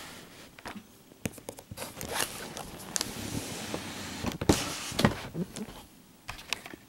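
Cardboard shoebox being handled and its lid worked open: cardboard scraping and rubbing, with scattered knocks and taps, the loudest a couple of knocks about four and a half to five seconds in.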